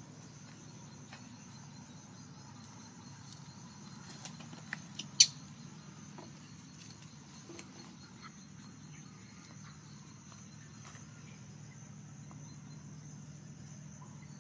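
Steady high-pitched drone of insects chirring. A few short, sharp high sounds come about four to five seconds in, the last and loudest a little after five seconds.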